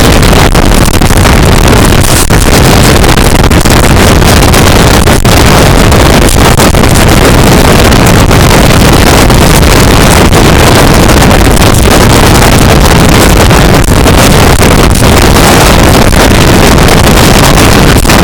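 Express passenger train running past at high speed: a loud, steady rush of wheel and air noise, with wind buffeting the microphone.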